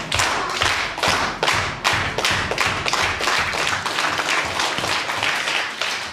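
Crowd clapping in unison in a steady rhythm, about three claps a second.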